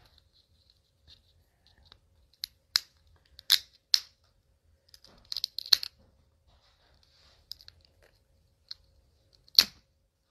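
Scattered sharp clicks and small snaps of fingers picking at a small hard object close to the microphone, trying to work a pearl loose; about a dozen, irregular, with the loudest snap near the end.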